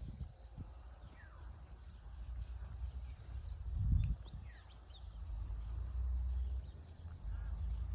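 Outdoor ambience: a low, uneven rumble with a few faint bird chirps and a single thump about four seconds in.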